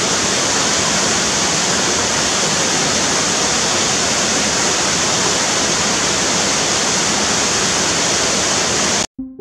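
Waterfall rushing steadily into a rocky pool, a loud even roar of falling water that cuts off suddenly near the end.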